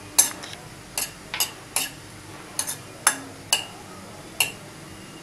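A cooking utensil clinking and knocking against a wok while chopped onion is stirred in hot oil, about eight sharp, irregular strikes.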